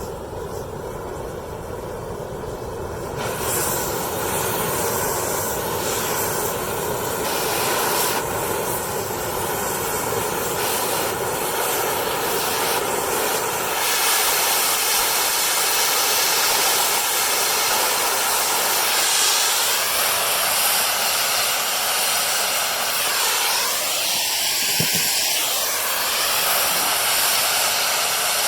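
Oxy-fuel cutting torch hissing steadily as it cuts on the excavator bucket's teeth. It grows louder about three seconds in and again about halfway through.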